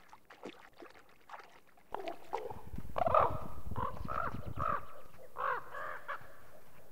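Common ravens calling in a quick series of short croaks and caws, starting about two seconds in, with a low rumble under the first calls.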